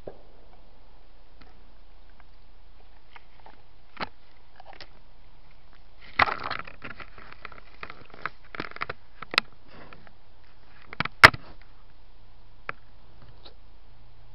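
A black bear nosing and pawing a trail camera: scattered clicks and rubbing on the camera housing, a burst of scraping and rustling a little before halfway, and sharp knocks about two-thirds and four-fifths of the way through, the later knock the loudest, as the camera is bumped and knocked off its aim.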